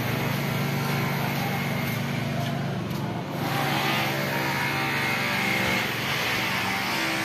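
A motor vehicle engine running, its pitch changing about three seconds in.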